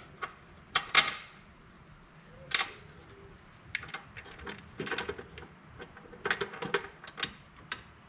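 Irregular sharp metal clicks and clinks of bolts, nuts and hand tools being handled while fitting a snowblower's cutting edge. The loudest come about a second in, with small clusters later.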